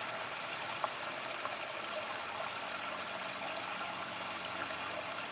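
Steady trickle of running water, with one small click a little under a second in.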